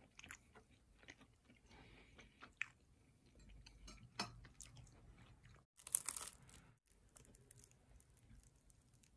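Quiet chewing and small crunches of crisp fried food, with a louder crackle of about half a second around six seconds in as the crispy fried wrapper of a big cheese stick is pulled apart.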